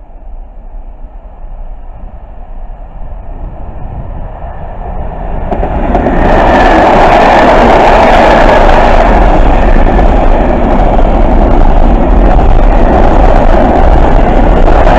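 A container freight train hauled by an electric locomotive approaches, growing louder over about the first six seconds, then passes close by with the loud, steady rolling noise of its loaded flat wagons on the rails.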